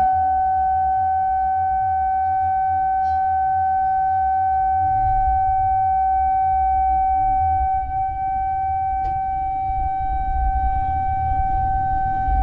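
Low-pitched siren holding one steady tone with overtones, after a slight rise in pitch at the start. A low rumble runs underneath.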